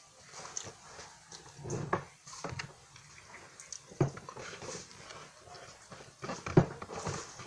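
Close-miked chewing and crunching of a flaky French Pie biscuit, with irregular crackles and a few sharper bites, the loudest about six and a half seconds in.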